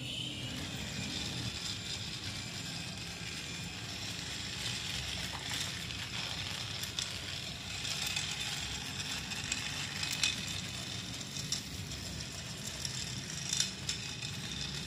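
Battery-powered toy train locomotive running on its plastic track: a steady motor whir with occasional sharp clicks.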